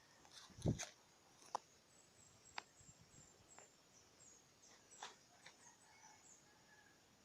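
Near silence with faint rural outdoor ambience: a few soft, isolated clicks and a run of faint, high, short chirps in the middle.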